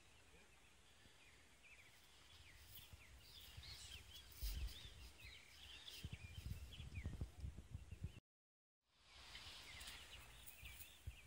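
Faint outdoor ambience with birds chirping, many short quick calls, and low dull thuds of movement close to the microphone. The sound cuts out completely for about half a second near the end.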